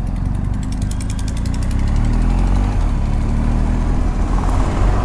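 Motorcycle engine running under way, its pitch rising from about two seconds in as the bike accelerates.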